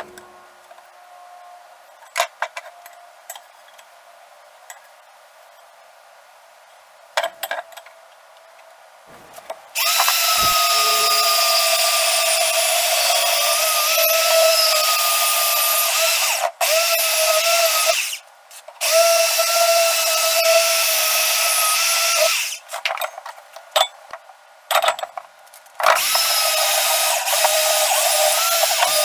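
Handheld portable band saw cutting square steel tubing. The motor starts about ten seconds in and runs with a steady tone, stopping and starting again several times. A few light clicks and taps come before it.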